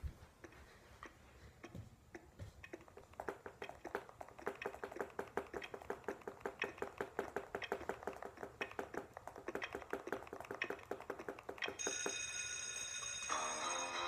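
Quick, light clicking taps, about three or four a second, like typing on a tablet or phone on a table. About twelve seconds in, music starts to play.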